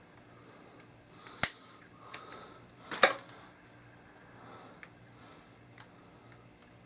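A few sharp clicks and taps from handling the coffeemaker, the two loudest about a second and a half and three seconds in, over a faint steady hum.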